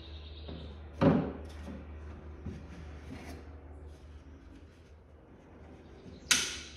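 Two sharp wooden knocks, one about a second in and one near the end, as the removable cedar slatted sole is set down into the dinghy's hull, over a steady low hum.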